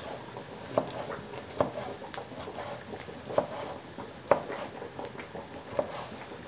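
Chef's knife dicing tomatoes on a wooden cutting board: irregular knocks of the blade striking the board, a few louder than the rest.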